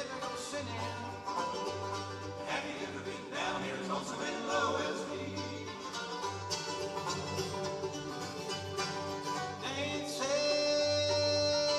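Bluegrass-style background music: banjo and guitar with singing over a steady bass.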